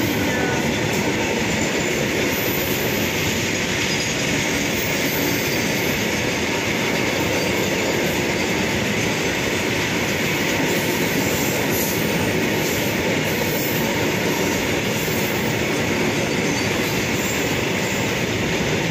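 Freight train of open wagons, some loaded with coal, rolling past at a level crossing: a steady, unbroken noise of steel wheels running on the rails.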